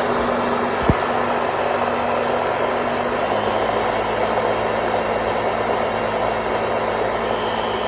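Countertop blender running continuously while blending a smoothie. The loud whirring motor drops slightly in pitch about three seconds in.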